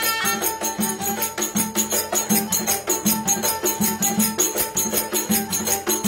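Live Turkish folk dance music: a davul drum beats a steady rhythm, strong strokes about every three-quarters of a second with lighter strokes between, under a melody from a zurna and a kemane.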